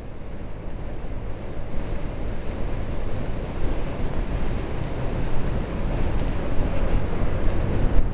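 Wind rushing and buffeting over a full-face motorcycle helmet, picked up by a camera inside the helmet, growing louder as the scooter gathers speed.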